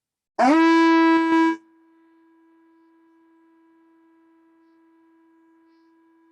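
Sea conch shell trumpet blown once: a short, loud, brassy blast that scoops up in pitch at the start and holds for about a second. It is followed by a faint steady tone at the same pitch.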